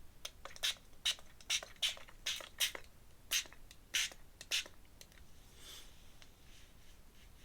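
About nine quick scratchy strokes of a drawing tool across paper, roughly two a second, ending about four and a half seconds in.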